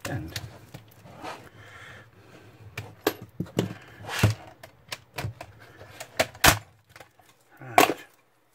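The metal and plastic frame of an LCD monitor panel being bent and pried apart by hand: an irregular string of sharp clicks and clacks.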